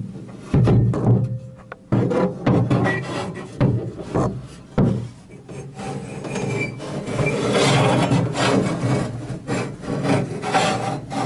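Handling noise inside a truck door: irregular knocks and scraping rubs against the door, turning into a longer stretch of steady scraping about halfway through.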